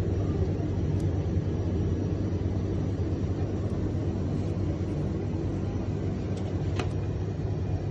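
Steady low mechanical hum and rumble of shop refrigeration and ventilation: drink-cooler fans and compressors with air conditioning. There are a couple of faint clicks about six and a half to seven seconds in.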